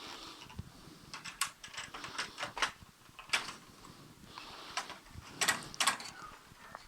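Plastic printer parts being handled by hand, giving a string of sharp clicks, knocks and light scrapes: laser-printer toner or drum unit parts and their gears being moved and fitted.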